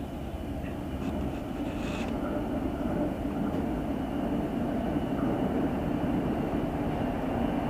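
Southern Shorthaul Railroad diesel-electric locomotive running light, its engine making a steady rumble that grows slowly louder as it approaches.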